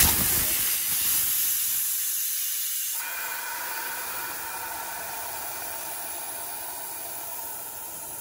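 Air hissing out of a Honda CBR150R's rear tubeless tyre through the valve stem with its core removed, the tyre deflating so that sealant gel can be put in. The hiss starts suddenly, changes tone about three seconds in, and slowly fades.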